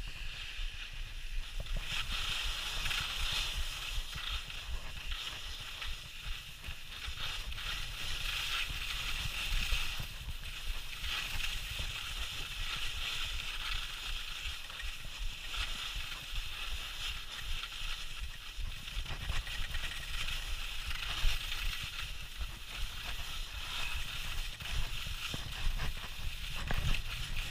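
Skis sliding and scraping over snow, a steady hiss, with wind buffeting the camera microphone as a low rumble and a few sharper bumps along the way.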